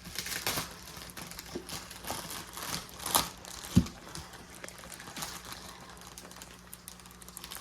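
Plastic packaging crinkling and rustling as it is handled, with scattered clicks, a sharp click about three seconds in and a dull knock just before four seconds.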